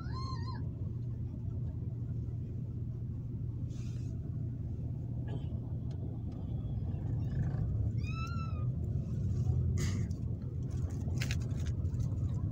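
Steady low rumble of a bus's engine and tyres heard from inside the passenger cabin. Two short high squeaks come over it, one at the very start and one about eight seconds in.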